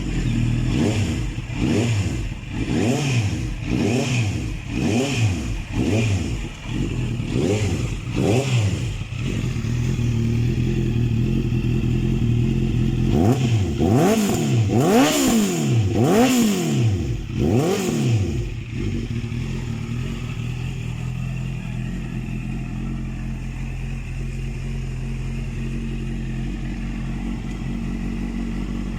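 Honda CB650F's inline-four engine, just started, blipped through a quick series of short revs. It settles briefly, is revved harder four times, then idles steadily.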